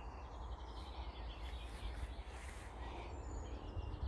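Outdoor garden ambience: faint bird chirps and short whistles over a low, steady rumble.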